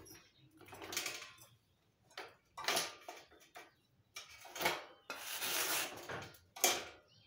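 Steel bicycle kickstand being swung up and down by hand, giving a series of metallic clacks and clicks, with a longer rattle about five seconds in.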